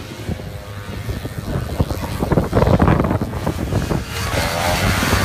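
Antique two-stroke snowmobiles racing past at full throttle, their engine noise building and loudest about three seconds in as they go by.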